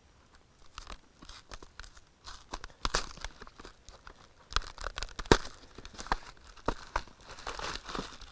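Cardboard frozen-dinner box being torn open and its frozen plastic tray and film handled: irregular rips, crinkles and sharp clicks.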